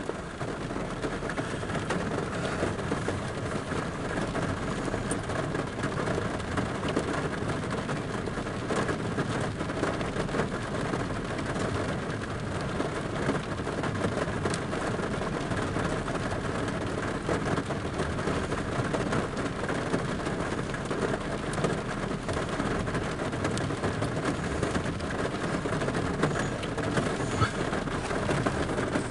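Heavy rain falling on a vehicle's roof and windows, heard from inside the cab: a steady, dense patter.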